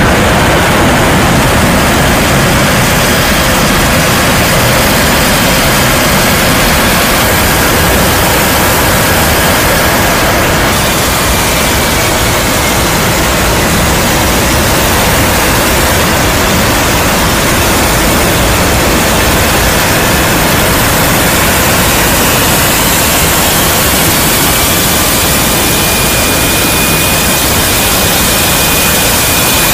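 Loud, steady roar of a C-17 Globemaster III in flight heard from inside its cargo hold: four Pratt & Whitney F117 turbofan engines and rushing airflow around the paratroop door. A faint thin high tone sits over the roar near the end.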